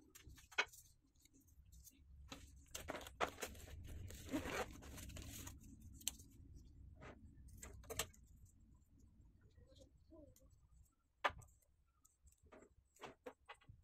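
Handling noise from small wires and plastic heat-shrink tubing being fitted by hand: scattered clicks and rustles, with a longer rustling stretch a few seconds in and a few sharp ticks.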